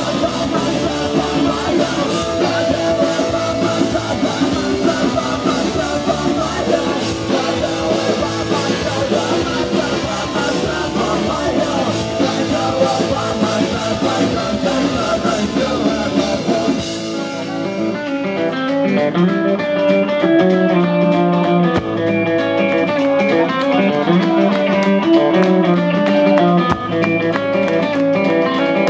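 Live rock band playing an instrumental passage: electric guitar over a full drum kit with cymbals. About seventeen seconds in the cymbal wash and heavy drumming drop away, leaving mostly electric guitar notes in a sparser section.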